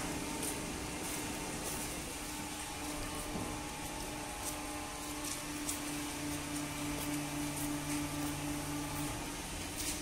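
Automatic horizontal waste-paper baler and its feed conveyor running, a steady mechanical hum. A second, lower tone joins about halfway through and stops about a second before the end.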